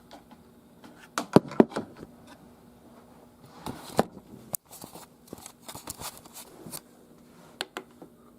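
Irregular clicks and knocks of equipment being handled, a few in quick succession about a second in and a scattered run in the second half, over a faint steady electrical hum.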